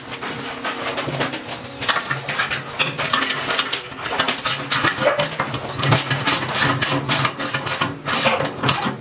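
Rapid metallic clicking and rattling from the bolt latch of a steel kennel door being worked by hand.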